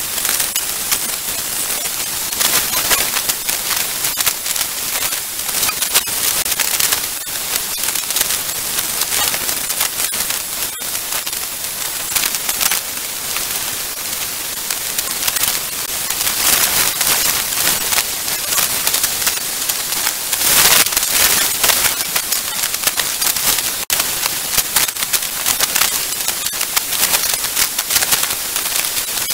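Heavy hurricane rain, a dense crackling hiss that grows louder in the second half, strongest about 20 seconds in.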